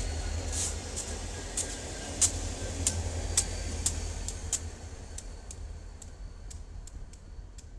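Diesel locomotives running, a steady low rumble with a series of sharp clicks about every half second that fade out after about five seconds.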